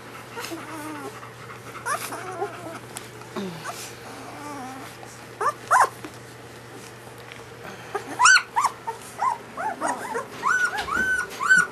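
German Shepherd puppies whimpering and squeaking in short high cries, a few scattered at first, then a quick string of them from about eight seconds in.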